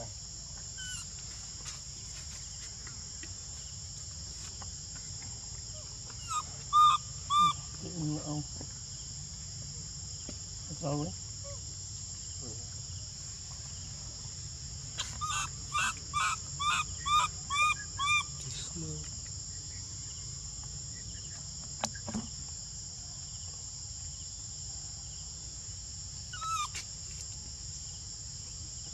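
Baby macaque giving short, arched squealing calls, a few a second, in two runs: about six seconds in and again about fifteen seconds in, with a single call near the end. A steady high insect buzz runs underneath.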